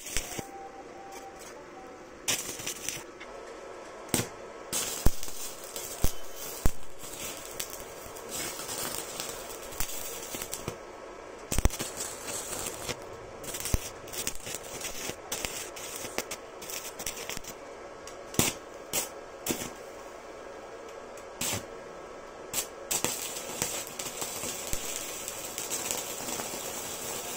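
Stick (shielded metal arc) welding from an iBELL 220A IGBT inverter welder: the electrode's arc crackling and hissing steadily, with frequent sharp pops of spatter. The crackle breaks off briefly a few times as the arc goes out and is struck again.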